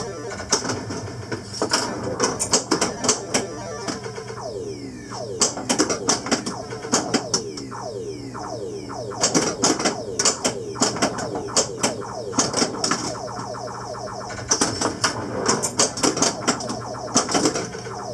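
Williams Black Knight pinball machine in play: clusters of sharp mechanical clacks from flippers, bumpers and solenoids, mixed with the game's electronic sound effects in many short falling tones, over a steady low hum.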